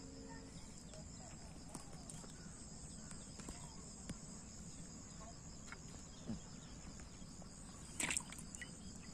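Steady high-pitched chorus of insects such as crickets, with scattered small clicks and a brief louder knock or rustle about eight seconds in.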